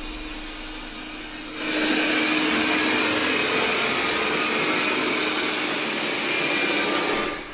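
Roborock S6 MaxV robot vacuum running, a steady whir of its suction fan with a faint high whine. It grows much louder about one and a half seconds in and drops away just before the end.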